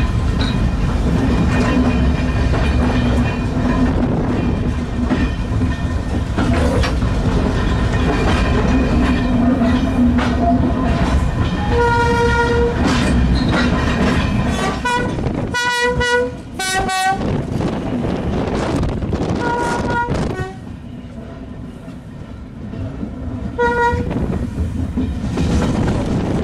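Diesel-hauled heritage train running, heard from inside a carriage: a steady rumble with the wheels clicking over the rail joints. The horn sounds several times from about halfway through, in short blasts at two pitches, and the running noise drops away about twenty seconds in.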